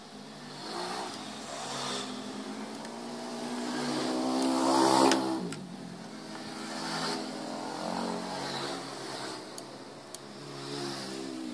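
Motor vehicle engines passing by in waves. The loudest comes up to about five seconds in and then drops in pitch as it goes past. A couple of faint clicks follow later.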